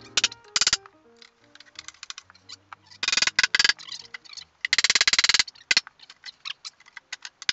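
Hammer blows and hand strikes on a thick oak bench top, knocking it loose from the stringer and side cleats it rests on. The knocks come in quick flurries, the loudest about three and five seconds in.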